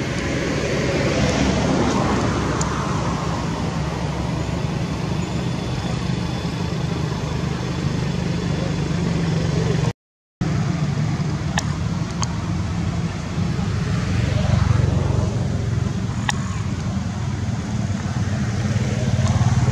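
Steady low rumble of motor noise with a few faint clicks. The sound cuts out completely for a moment about halfway through, then resumes.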